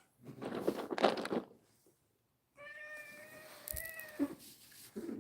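A cat gives one long, drawn-out meow about two and a half seconds in, preceded by a brief noisy rustle in the first second or so.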